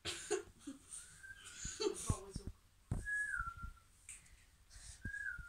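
A person whistling three short notes to call a pet, the second and third dipping slightly in pitch. Between the notes there is breathy hissing and a few soft low thumps.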